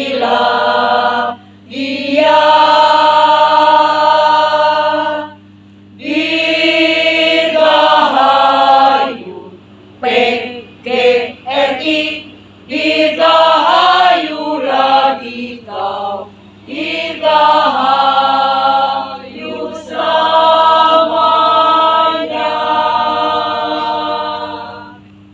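Mixed choir of women's and men's voices singing a hymn unaccompanied, in phrases of held chords with short breaks between them; the singing ends just before the close. A steady low hum lies underneath throughout.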